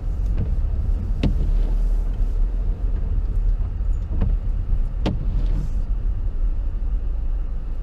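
Steady low rumble of a car heard from inside the cabin, with a few sharp clicks at uneven intervals.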